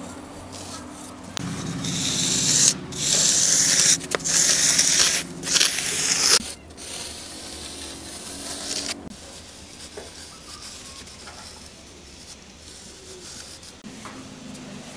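Rough scraping and rubbing against a hard surface. It is loudest and most abrasive for about five seconds in the first half, then turns to quieter rubbing and fades to a low hiss.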